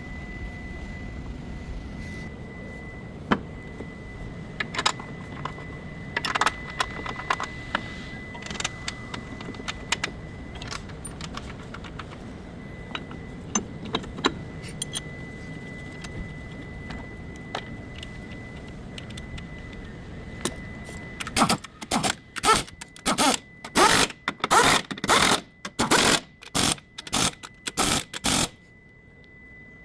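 Metal hand tools clinking on car parts with scattered sharp clicks, then a run of loud rattling strokes, a couple a second, for several seconds near the end, over a steady hum.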